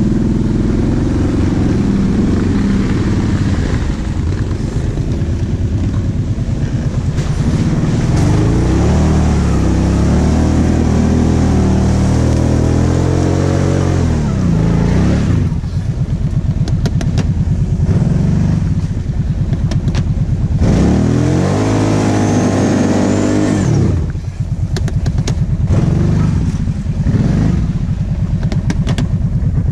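ATV engine pulling through mud, revving up and down again and again as the throttle is worked, with scattered sharp knocks in the later part.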